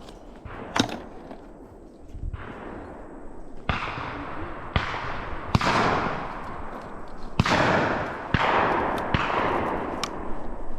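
Shotgun shots fired in irregular succession, about eight over the span, each a sharp crack with a long echoing tail; the later ones follow each other about a second apart.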